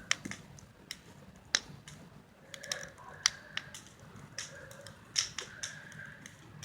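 Big wood bonfire crackling, with sharp, irregular pops and snaps from the burning wood.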